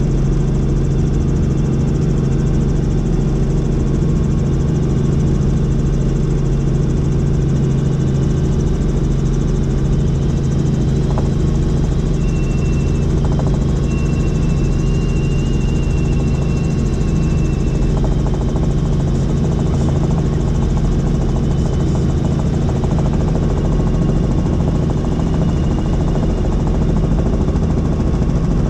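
Helicopter in flight, its engine and rotors making a loud, steady low drone.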